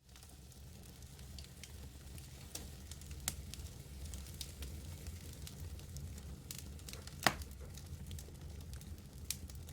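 Wood fire burning in a fireplace, crackling and popping over a low steady rumble, with one sharp pop louder than the rest about seven seconds in. The sound fades up from silence at the very start.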